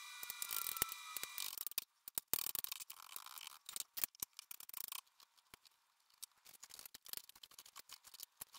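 Chef's knife chopping on a plastic cutting board in quick, uneven taps as garlic is diced. From about five seconds in the taps grow sparser and fainter as raw chicken is sliced.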